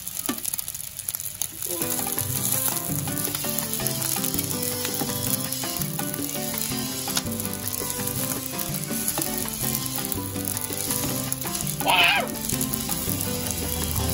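Cold cooked rice frying in butter in a nonstick pan: a steady sizzle, with a slotted spatula scraping and breaking up the rice. A brief voice-like sound about twelve seconds in.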